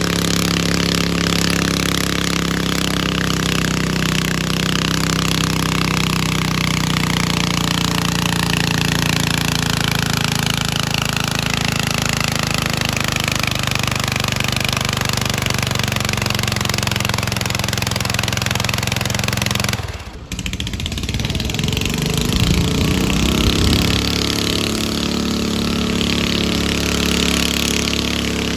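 Garden tractor engine running hard, its pitch slowly sinking for about twenty seconds. About two-thirds through the sound drops out abruptly, then an engine revs up quickly and settles into a steady run.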